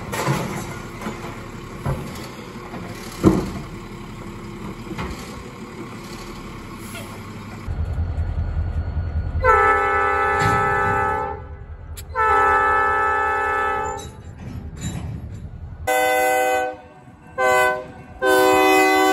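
A garbage truck's automated arm lifts and dumps a cart over the engine's running, with a few clanks. Then a diesel locomotive's multi-note air horn sounds two long blasts over a low rumble. After that come more horn blasts, two short ones and then a long one, from an SD40-2 locomotive approaching a grade crossing.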